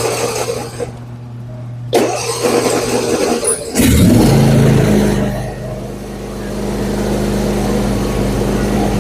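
Riding mower engine running, with a short noisy burst about two seconds in; about four seconds in the engine note shifts lower and louder and then holds steady. The deck blades are not turning, because the deck belt was left off, so engaging the blades does not spin them.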